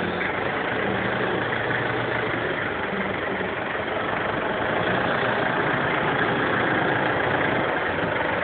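Toyota truck's engine idling with a steady, even hum.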